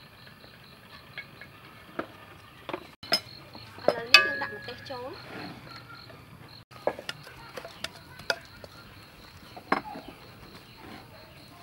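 Scattered clinks and knocks of a wooden ladle against a metal cooking pot and a small plate as chili is scraped into the broth and stirred. A steady pulsing insect trill runs underneath.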